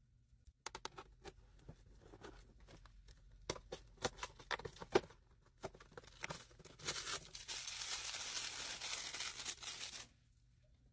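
Cardboard mystery-box packaging being handled, with scattered clicks and crinkles, then a long steady tear of about three seconds as a perforated cardboard compartment is ripped open, stopping suddenly near the end.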